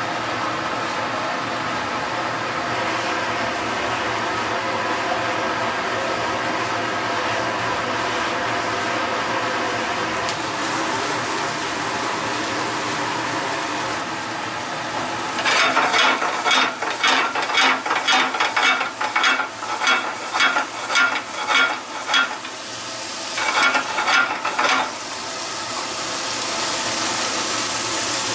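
Gas burner running steadily under a frying pan of bacon, onion and mushrooms, with the food sizzling. About halfway through comes a run of quick, sharp clattering strokes in the pan, roughly two a second, for several seconds, then another short run a little later.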